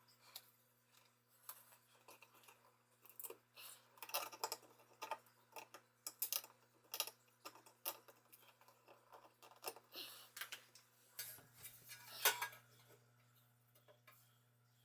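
Irregular light clicks, taps and small knocks of handling tools and parts, over a faint steady low hum.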